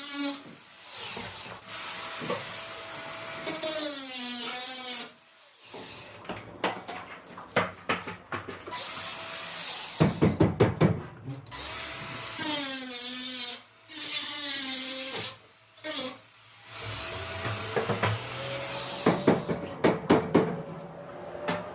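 Power drill running in several bursts of a few seconds, its motor pitch rising and falling as the trigger is worked. Sharp knocks and clatter of tools and parts come between the bursts.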